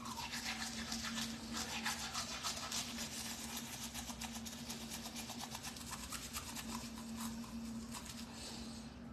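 Manual toothbrush scrubbing teeth with tooth powder in quick, continuous back-and-forth strokes, over a steady low hum.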